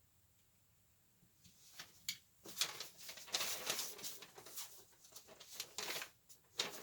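Plastic model-kit parts being handled and pressed together in a dry fit: irregular clicks, taps and rustling that start about a second and a half in.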